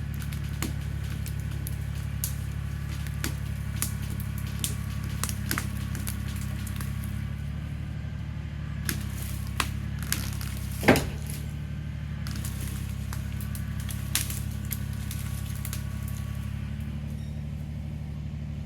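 Kubota BX23S compact tractor's three-cylinder diesel engine idling steadily, with scattered snaps and knocks of brush and wood as the log is worked loose; one sharper crack about eleven seconds in.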